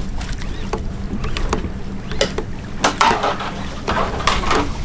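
Boat at sea: a steady low engine hum, with water sloshing against the hull a few times and scattered short clicks and knocks.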